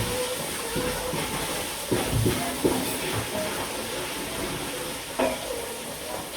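Steady hiss of food cooking in a pot, with a few light knocks of kitchen utensils.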